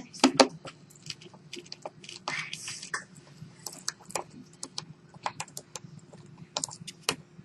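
Irregular light clicks and taps of small parts being handled: phone casing pieces, screws and a screwdriver during reassembly of a smartphone. There is a louder cluster of clicks just after the start and a short scraping rustle around the middle, over a faint steady hum.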